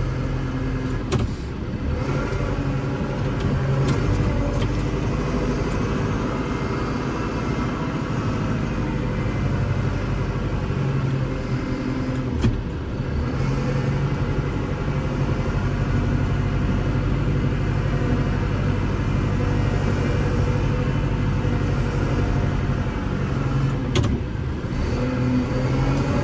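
Kubota L6060 tractor's four-cylinder diesel engine running steadily under load while plowing and back-dragging snow, with a few brief clunks.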